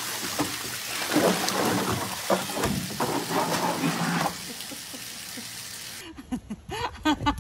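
Water splashing and gushing out of a tipped-over plastic paddling pool onto paving. It eases off about four seconds in.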